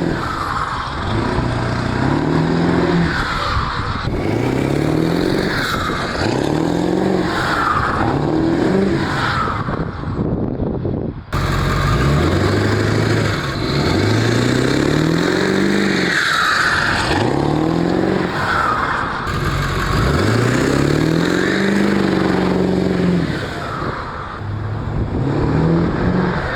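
7.3 L Powerstroke V8 turbo diesel being revved over and over, each rev rising in pitch, with the turbo whistling and fluttering through a newly fitted S&B cold air intake.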